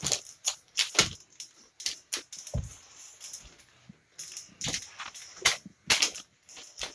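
Irregular sharp clicks and snaps of small plastic items, a baby-wipes pack and a small plastic bottle, being handled and knocked together, with a couple of duller thumps in the first half.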